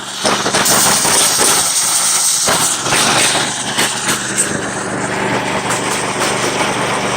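An engine running steadily under a constant hiss, with a few faint clicks.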